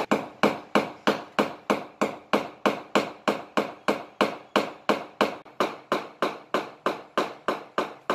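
Hand hammer striking at a wall in a steady run of quick blows, about four a second.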